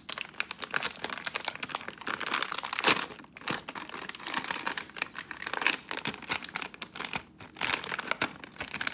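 Plastic packet of Model Magic modelling clay crinkling as it is handled and clay is pulled out of it, with a sharper crinkle about three seconds in.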